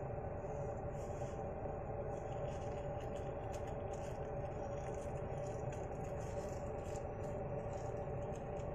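Steady background noise: a low rumble with a faint, steady hum and a few faint ticks.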